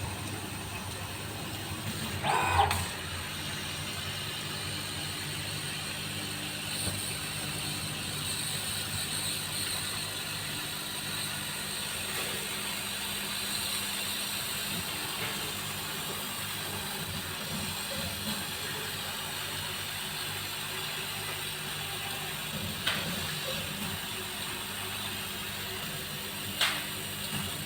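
CO2 laser cutting machine running: a steady hum with several low tones and a thin high whine, as its motors move the cutting head. A few short sharp knocks stand out, the loudest a couple of seconds in and two more near the end.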